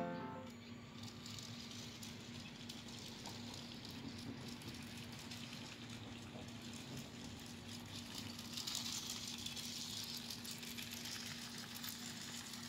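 A LEGO train's small Power Functions electric motor running with a faint steady hum as the locomotive's plastic wheels rattle lightly along plastic LEGO track. The rattle gets louder about nine seconds in.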